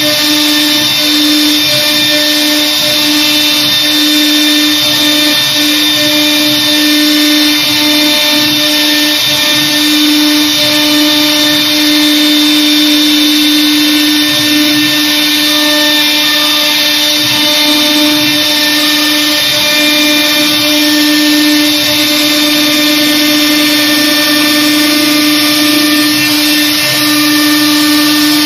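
Air-cooled spindle of a CNC router running at a steady whine while its bit routes grooves and a fret pattern into an MDF panel, with a steady hiss over it.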